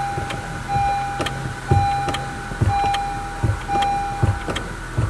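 In the cabin of a 2018 Honda CR-V with the engine running, a warning chime beeps in long tones about once a second and stops near the end. The brake pedal is being pumped, with a low thump at each stroke, about once a second from the middle on. This pumping after a pad change pushes the caliper pistons back out against the new pads.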